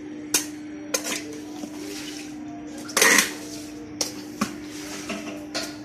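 Sharp metal clinks and knocks from the metal pole of a floor squeegee being handled and set against the tiled floor, about six in all, the loudest about three seconds in. A steady hum runs underneath.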